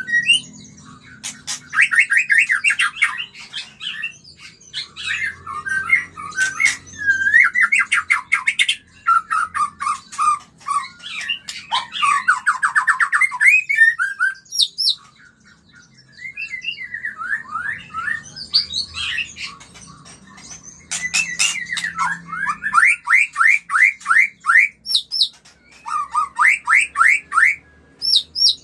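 White-rumped shama (murai batu) singing in breeding condition: a varied song of fast rattling trills and clear whistled phrases, with a brief pause about halfway through.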